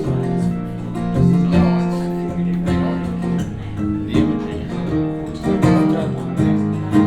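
Recorded music with strummed acoustic guitar and a bass line, an instrumental stretch between sung verses, played over Avantgarde Trio G3 horn loudspeakers driven by Air Tight tube amplifiers and heard in the room.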